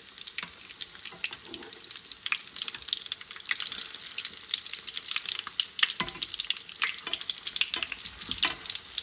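Breaded potato triangles shallow-frying in hot ghee with a steady crackling sizzle. A metal slotted spatula and spoon scrape and knock against the pan as the pieces are turned over, with a few sharper clicks in the second half.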